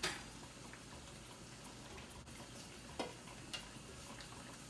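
A few sharp clinks of a kitchen utensil against cookware, one right at the start and two more about three seconds in, half a second apart, over a faint steady hiss.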